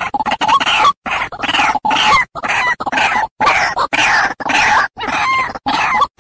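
White-breasted waterhen (ruak-ruak) calling: a fast, unbroken run of harsh repeated calls with short breaks between them. It is a bird-lure call used to draw the species in.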